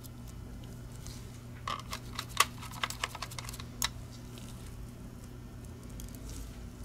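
A scatter of small plastic clicks and taps from a wireless gaming mouse's shell being handled and turned over on a rubber mat during reassembly, the loudest about two and a half seconds in. A faint steady hum runs underneath.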